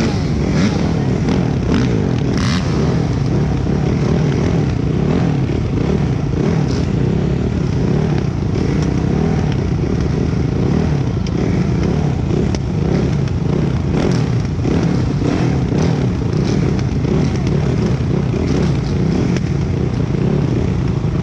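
Several motocross bikes running together on the start line, heard up close from one of the bikes, as the field waits for the start; the sound stays steady and loud throughout.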